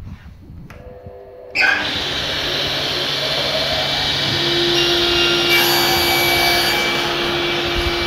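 SCM sliding-table circular saw switching on with a sudden jump in noise about one and a half seconds in, then running steadily with a whine. Midway, a harsher hiss as the blade crosscuts a drawer front.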